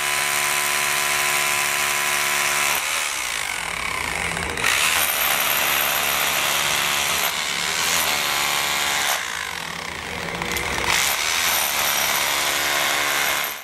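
Corded electric demolition hammer with a chisel bit breaking up concrete, running continuously. Its hammering gives a steady pitched rattle for the first few seconds and again near the end, turning rougher and noisier in between as the bit works through concrete and rubble.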